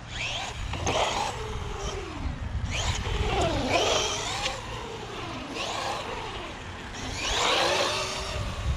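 Brushless electric motor of a 1/12-scale Bezgar HM124 RC car being driven: its whine swoops up and down in pitch with repeated bursts of throttle, with hissy bursts of noise alongside.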